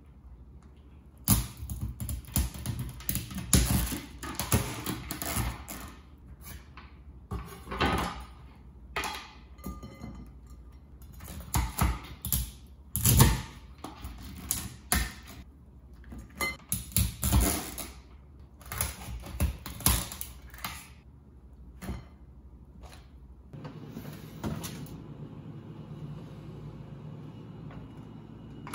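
A chef's knife cracking and cutting through Caribbean spiny lobster shells on a wooden cutting board: a long, irregular run of sharp cracks, crunches and knocks on the board. Near the end the cracking stops and a steadier low noise takes over as a refrigerator door opens.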